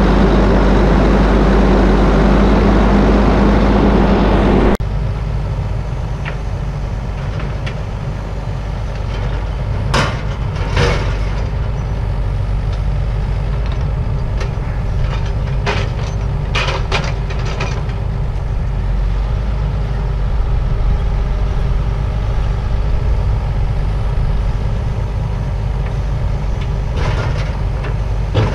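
Zetor 7245 tractor's four-cylinder diesel engine running steadily. It is louder for the first few seconds, then drops suddenly to a lower, steady run. Several metallic clanks and rattles come in the middle and near the end.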